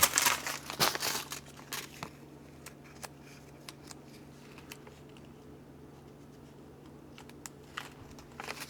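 Hands handling transmission parts while fitting bearings and a washer onto a shaft: a cluster of clicks and rustling in the first couple of seconds, then scattered faint clicks over a steady low hum, and more rustling near the end.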